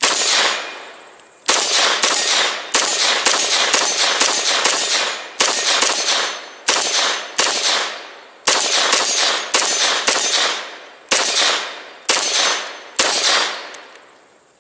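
CZ Scorpion 9mm firing a full magazine of about twenty semi-automatic shots in rapid, uneven strings with short pauses between them.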